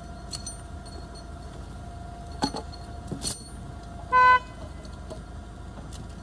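A Yale forklift's engine idling steadily, with a few sharp clinks, and about four seconds in a single short toot of the forklift's horn, the loudest sound.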